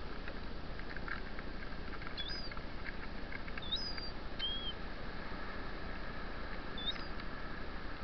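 Steady wash of surf with short, high chirping bird calls from shorebirds: a couple about two seconds in, a few more around four seconds, and one near seven seconds. Faint soft ticks come in among the first calls.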